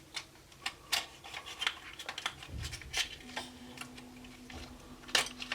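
Scattered small clicks and plastic taps of a Zoom H4n handheld recorder being handled, as its battery compartment is opened and the AA batteries are pulled out.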